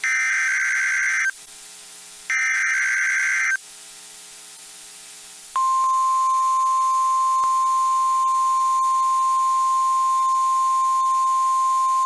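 Emergency Alert System SAME header bursts on NOAA Weather Radio: two harsh digital data bursts about a second long, a second apart. About five and a half seconds in, the steady single-pitch NOAA weather radio warning alarm tone starts, sounding for a weekly test of the alarm.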